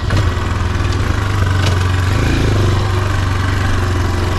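Motoland XR 250 enduro motorcycle's single-cylinder engine idling steadily.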